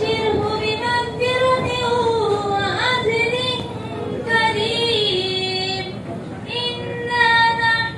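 A child's voice chanting Quran recitation (tilawat) melodically, holding long notes that glide up and down, with short breaks between phrases.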